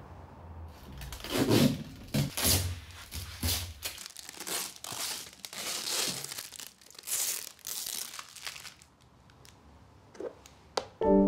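Yellow packing tape being peeled and torn off a white plastic bucket's lid: a long run of crackling rips. Near the end come a couple of sharp clicks as the plastic lid is prised at its rim, and piano music starts right at the close.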